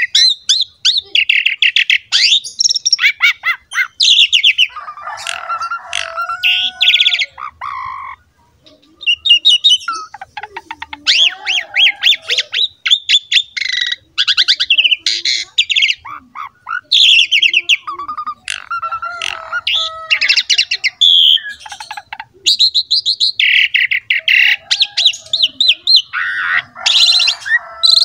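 Pied starling (jalak suren) singing vigorously: a long, varied run of fast, chattering, rattling notes and squawks mixed with lower whistles, broken only by a couple of short pauses.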